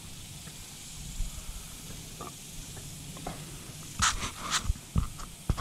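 Steady background hiss, then a cluster of sharp knocks and rubbing bumps from about four seconds in as a hand brushes and grips the camera.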